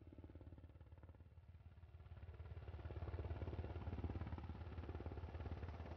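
An engine running: a low, steady rumble with rapid, even pulsing, growing louder about two to three seconds in.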